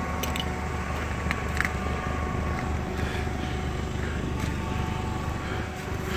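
Forklift engine idling with a steady low hum, with a few faint clicks over it.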